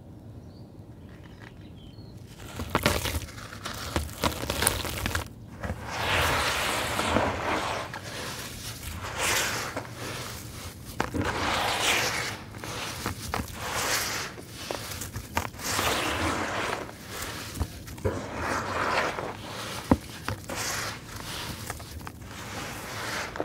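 Hands squeezing, kneading and crumbling wet, gritty sand-and-cement mixture in water in a plastic tub. It makes a crunchy, grainy crumbling sound in repeated strokes, about one every second or two, starting a couple of seconds in.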